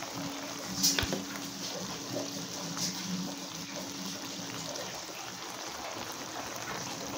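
Watery simmering and dripping of par-boiled rice being scooped from its hot water with a metal slotted spoon and layered onto vegetable curry in a pan, with a few sharp metal clinks of the spoon against the pan, the loudest about a second in.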